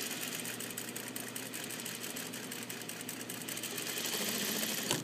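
Sewing machine running steadily, its needle stitching rapidly through grey fabric while understitching a pocket facing, then stopping abruptly at the very end.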